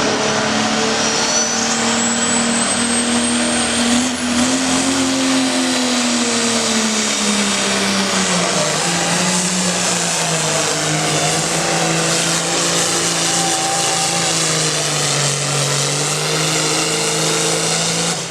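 A 9,500-pound hot farm class pulling tractor's engine running flat out under load on a pull down the track, with a high whistle rising over the first few seconds. The engine note sags about six seconds in as the sled's weight builds, then holds lower until it drops off at the end.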